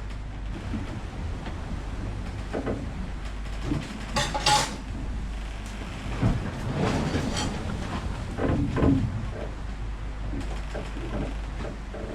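Irregular clattering knocks of cookware and cabin fittings in a yacht's galley as the boat rolls at sea, over a steady low hum. The loudest clatter is about four seconds in, with more around six to nine seconds.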